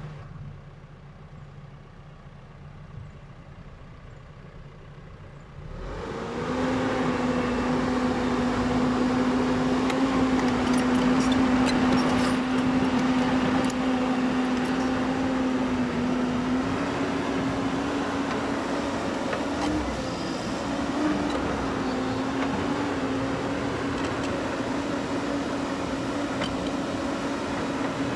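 JCB tracked excavator's diesel engine running, low at first. About six seconds in it rises to working speed with a loud steady whining tone that shifts slightly in pitch as the machine digs soil.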